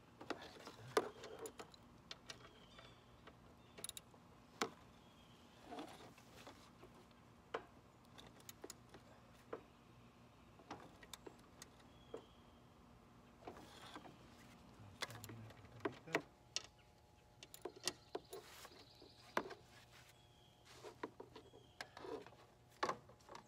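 Scattered light metallic clicks and knocks from a wrench working a bolt under a riding lawn mower's deck, coming irregularly every second or two.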